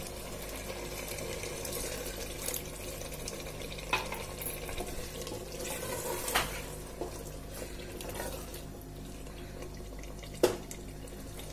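Silicone spatula stirring mince, potatoes and freshly added water in an open pressure cooker: wet sloshing and squelching, with a few sharp knocks of the spatula against the pot.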